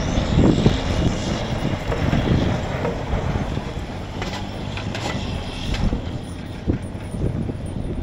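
Heavy tow truck's diesel engine running under load as it drives out of a snowbank on chained tires, pulled free by a plow truck. There are a few sharp clanks about halfway through.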